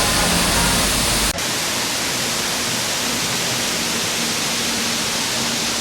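Steady, loud rushing hiss with no clear pitch, broken by a brief dip a little over a second in.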